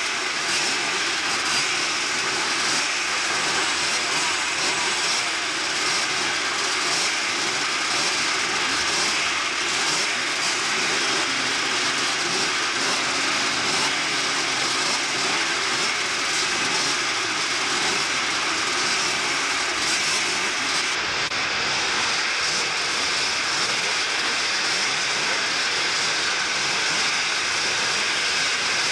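A full field of two-stroke motocross bikes running together at the starting gate, many engines revving at once in a dense, steady drone.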